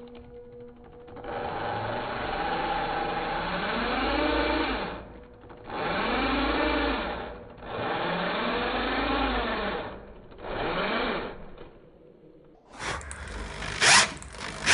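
Drill driving a self-drilling roofing screw into 5 mm steel, played back in slow motion so the motor sounds low and drawn out: four long runs, each rising and then falling in pitch. Near the end, after a short lull, come a few sharp clicks.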